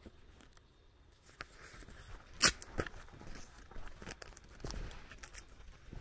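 Footsteps and rustling of leaves as someone walks up to a fence, with a sharp knock about two and a half seconds in and a softer one just after it.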